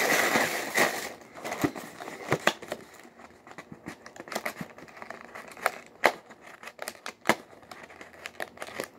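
Cereal box and its plastic inner bag being handled: a burst of crinkling at the start, then scattered sharp clicks and taps of the cardboard box as it is turned over.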